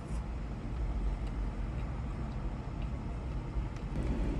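Steady low rumble of an idling engine, heard from inside a car's cabin.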